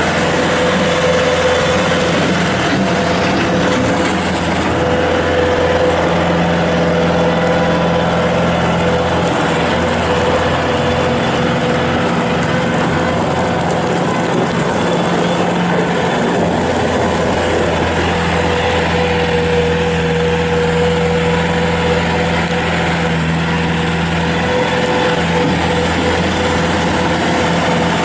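Kubota turbo diesel engine of a Bobcat S220 skid steer loader running steadily at a constant speed, a continuous hum with a steady whine above it.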